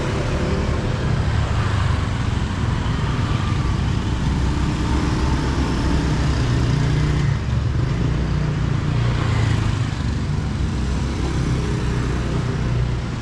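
Motorcycle and scooter traffic passing over a level crossing, their small engines running steadily, with one motorcycle going by close about six seconds in.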